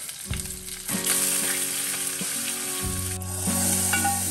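Mustard seeds, dried red chillies and curry leaves sizzling in hot oil in a frying pan: a tempering being made for moru curry. The sizzle grows about a second in.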